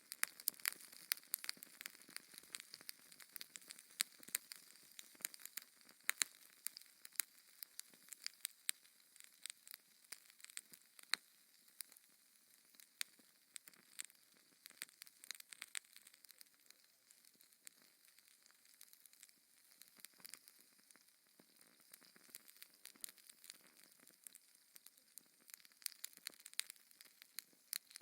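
Fire in a fireplace crackling: many sharp, irregular crackles over a soft steady hiss, thinning out for a while in the middle.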